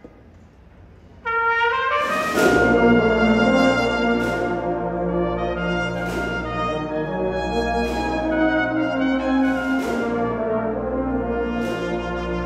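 Agrupación musical brass band of trumpets, cornets and trombones starting a piece. The brass comes in on a held chord about a second in and swells to the full band near two seconds, with loud strokes every couple of seconds.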